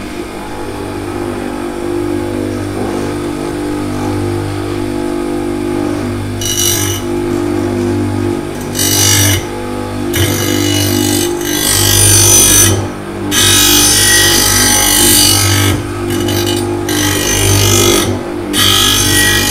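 Electric motor of a homemade bench sharpener running with a steady hum. From about six seconds in, its white corundum grinding wheel grinds against a branch-chipper knife in repeated stretches of a second or more, with short breaks between.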